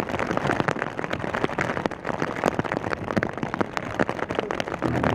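Rain falling close to the microphone: a dense, irregular ticking of raindrops striking a surface.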